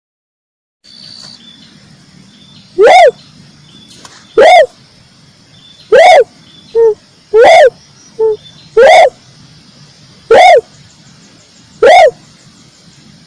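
Red turtle dove (red collared dove) calling: short, loud arched cooing notes repeated about every one and a half seconds, seven in all, with two shorter, softer notes slipped in between. The calls start after about a second of silence.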